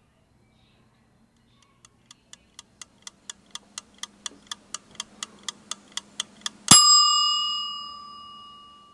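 A timer ticking about four times a second, growing steadily louder, then a single loud bell ding about two-thirds of the way through that rings on and slowly fades out.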